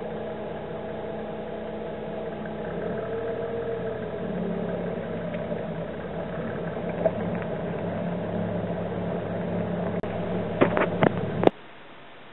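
Car engine running slowly with a steady hum, its pitch shifting about three seconds in as the vehicle follows along a gravel road. Near the end come several sharp clicks, then the engine sound cuts off abruptly to a faint hiss.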